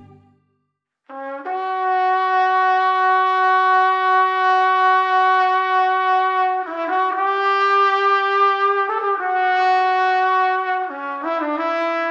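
Background music: a trumpet-like brass lead playing a slow melody of long held notes, starting about a second in after a brief silence, the pitch changing every two to three seconds.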